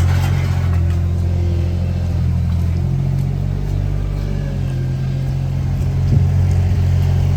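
An engine running steadily with a low drone, its pitch shifting a little about three seconds in, with a single sharp knock near the end.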